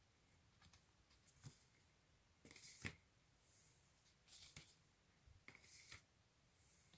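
Cardboard LP record sleeves being flipped forward by hand one after another: faint, brief papery swishes and light taps, the loudest about three seconds in.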